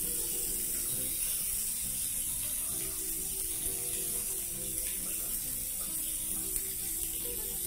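Pork sizzling steadily on a stovetop grill pan, a constant high hiss, under soft background music with sustained notes.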